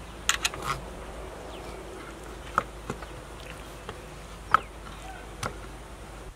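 Kitchen knife knocking on a wooden cutting board while raw chicken is cut into pieces: a few sharp, separate taps, a cluster in the first second, then single ones spread through the rest.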